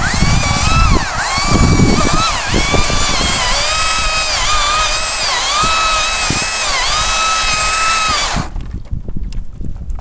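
Makita cordless top-handle chainsaw running at full speed with a high electric whine. The whine starts and stops abruptly, with no idle. Its pitch sags several times as the chain bites into ginkgo branches, and it cuts off about eight and a half seconds in.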